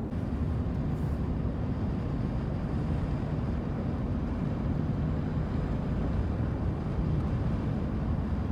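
Steady low road and engine drone inside a moving vehicle's cabin.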